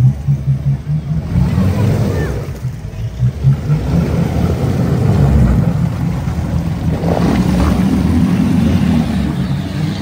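Off-road 4x4 vehicle's engine running hard with a heavy, uneven low rumble, swelling louder about halfway through.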